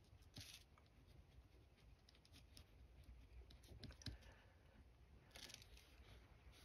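Faint scratching of a pen writing on lined paper, in a few short strokes with light clicks.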